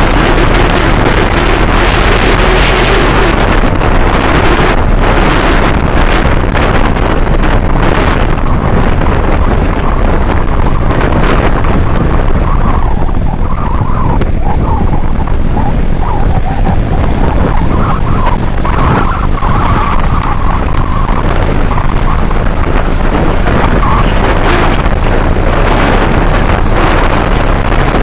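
Kawasaki Ninja 650 motorcycle under way on the road: a loud, steady rush of wind on the microphone with the parallel-twin engine running underneath.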